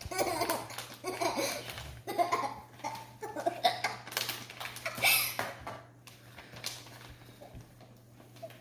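Children laughing and giggling, dying down about six seconds in.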